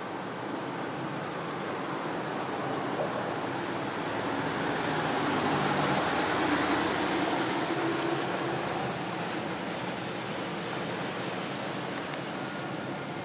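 Passing vehicle noise, a steady rushing that swells to its loudest about halfway through and then fades back.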